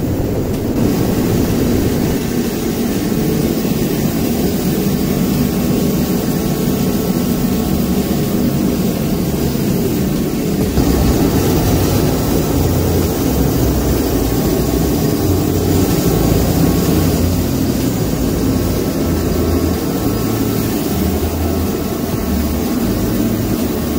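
Tiger King TK-2000 forced-air heater running: a loud, steady rush of fan and burner.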